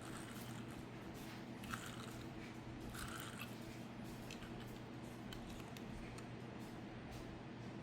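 Faint, scattered small clicks and light handling noises over a steady low room hum, a few of them sharper, about 2 and 3 seconds in.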